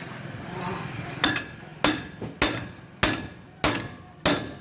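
Hammer blows on a steel axle, driving it into place as it is refitted after a wheel-bearing replacement: six sharp, evenly spaced strikes about 0.6 s apart, each with a short metallic ring.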